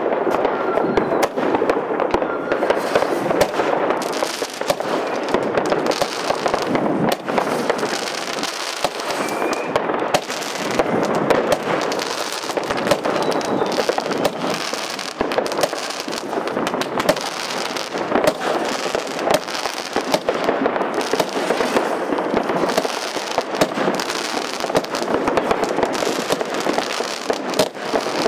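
Aquarius consumer firework going off: a dense, unbroken crackling and popping of many small bursting stars, at a steady loudness.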